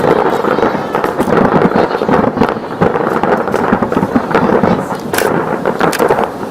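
Fireworks display: a dense, continuous barrage of bursts and crackling, with a couple of sharper cracks near the end.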